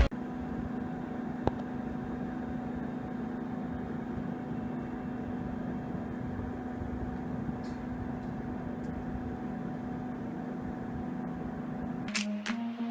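Steady room hum with a constant low tone, like a running air conditioner or fan, and a single faint click about a second and a half in.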